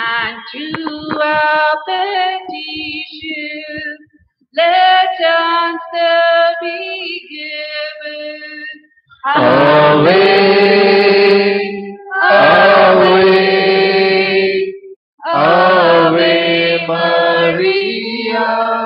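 Devotional hymn singing in slow phrases with held notes and short breaks between them, louder and fuller from about halfway through.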